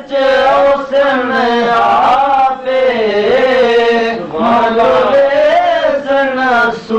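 A man singing a Punjabi devotional song unaccompanied, drawing out long, wavering held notes, with short breaths between phrases.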